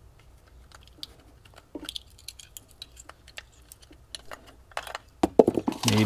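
Scattered light plastic clicks and rattles of a relay and wiring-harness connectors being handled and pushed into place, growing into a louder clatter in the last second.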